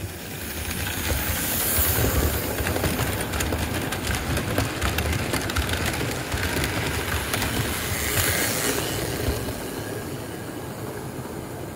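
American Flyer electric model train running on the layout's track: a steady rattle and clicking of its metal wheels on the rails over a low motor rumble.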